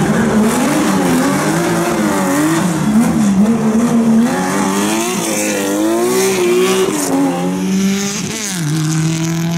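Porsche 911 rally car's air-cooled flat-six engine revving hard, its pitch rising and falling again and again with throttle and gear changes. Near the end another rally car's engine takes over, holding a steady note.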